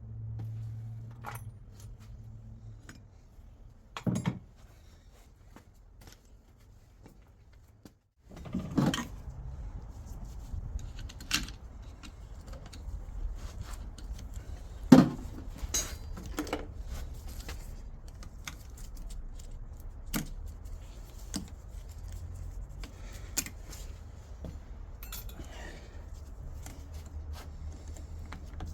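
Scattered metallic clinks and knocks of metal parts and tools being handled, the sharpest about 15 s in, over a steady low hum.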